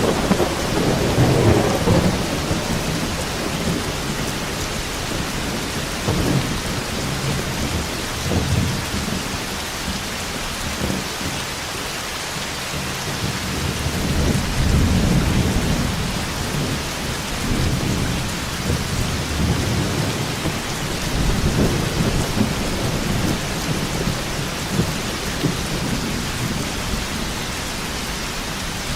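Thunderstorm: steady heavy rain hissing, with thunder rumbling in repeated low swells, the strongest in the first couple of seconds and others about a third, half and three-quarters of the way through.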